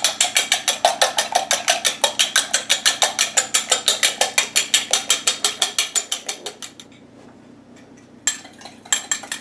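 An egg being beaten in a bowl for egg wash: a utensil clicks rapidly against the bowl, about seven strokes a second. It pauses briefly near the end, then starts again.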